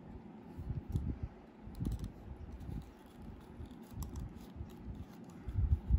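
Handling noise from a large plastic action figure being turned and moved in the hand: small plastic clicks and scrapes among dull low bumps.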